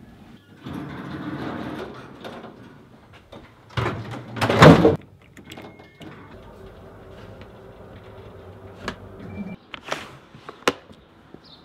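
Otis elevator doors sliding with a loud rush about four seconds in, followed by the car's low steady hum as it travels, with a short electronic beep twice.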